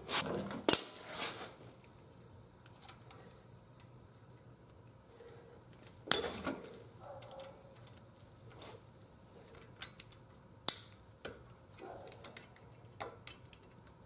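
Light, irregular metal clicks and clinks of hand tools working a new cotter pin through the castellated axle nut on the front hub, with a few sharper knocks scattered through.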